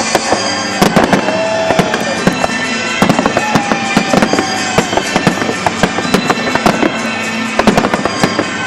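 Aerial fireworks going off in a rapid, continuous barrage of bangs and crackles, with a couple of whistling tones gliding through.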